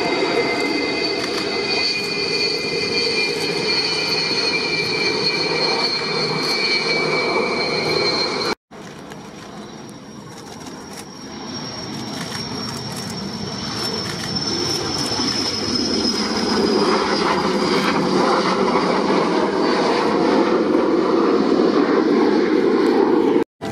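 Jet engines of a Ukrainian Air Force Sukhoi Su-27 rolling along the runway, with several high turbine whines sliding slowly down in pitch. About a third of the way in it cuts off abruptly to a Panavia Tornado's jet engines on the runway. These start quieter and grow steadily louder until near the end, with one high whine easing down.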